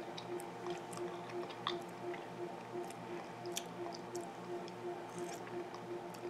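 A person chewing a spoonful of turkey pot pie with the mouth closed: soft wet mouth noises and small irregular clicks, over a faint steady hum.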